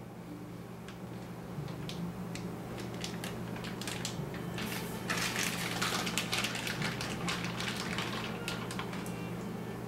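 Crackling and clicking of raw chicken breasts and their plastic packaging being handled and drained at a kitchen sink, busiest about halfway through, over a steady low hum.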